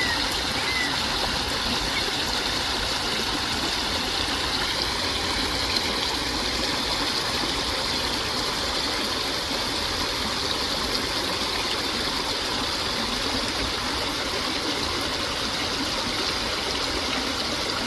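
Water flowing steadily in a stream, an even rushing sound that holds the same level throughout.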